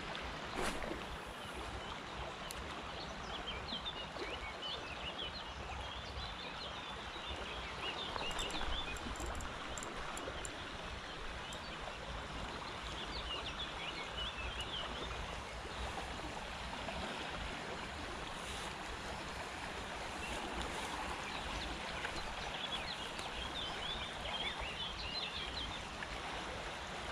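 Fast river water running steadily over shallows, with spells of high chirping from birds coming and going.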